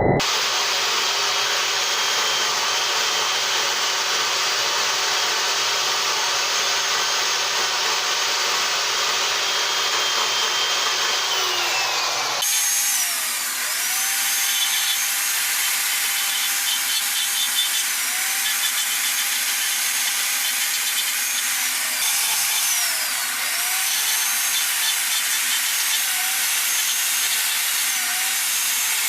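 Electric power carving tool running steadily with a rotary bit grinding into wood, its whine dipping in pitch several times as the bit bites and then recovering. The sound changes abruptly about halfway through.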